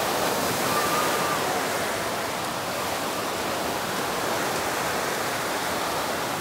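Surf washing onto a sandy beach: a steady rush of breaking waves that swells up at the start and then holds.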